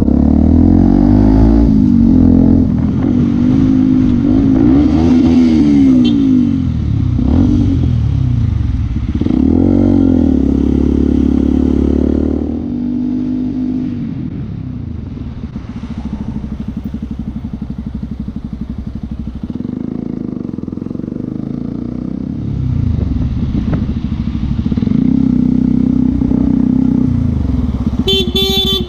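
Motorcycle engine pulling through the gears, its pitch rising and dropping back with each shift. It eases off to a lower, quieter run about halfway through, then picks up again.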